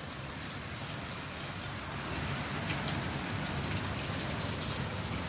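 Heavy rain falling steadily, a little louder from about two seconds in.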